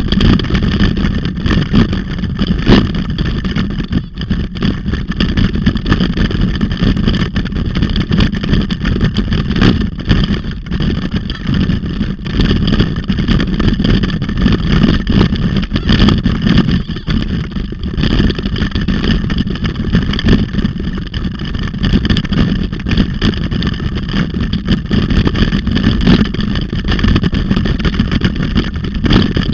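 Wind buffeting and the rumble of riding over a bumpy dirt trail, picked up by a handlebar-mounted action camera, with frequent knocks and rattles from the bumps.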